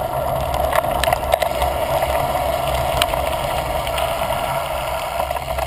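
Mountain bike rolling along a dirt trail, heard close up from a camera mounted on the bike: a steady rumble of tyres and wind noise, with scattered sharp clicks and rattles from the bike and loose grit.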